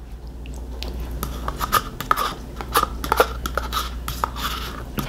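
A person eating: chewing, with irregular small wet mouth clicks.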